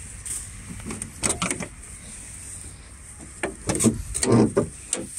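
Front grille panel of a Sinotruk HOWO truck cab being handled and opened: clusters of clunks and rattles, a short one about a second in and a louder, longer one in the second half.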